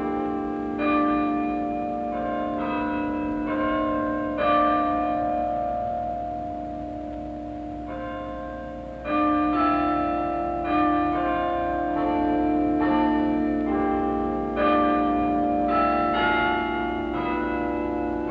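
A set of tower bells (chimes) playing a slow tune. The bells are struck one at a time, each ringing on under the next. About a third of the way through there is a pause of a few seconds with no new strikes while the tones die away, and then the tune resumes.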